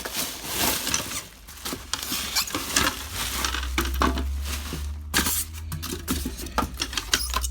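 Rustling packaging and light clinks and knocks of ceiling fan parts being handled and taken out of their box, many small irregular clicks throughout.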